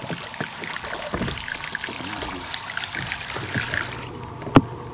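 Water lapping and splashing against a boat's hull in irregular small splashes, with one sharp knock near the end.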